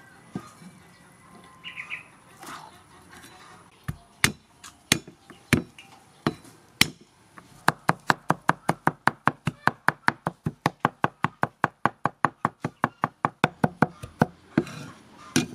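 Meat cleaver striking a thick round wooden chopping block: a few separate chops, then fast, even mincing at about six strokes a second as garlic is chopped fine.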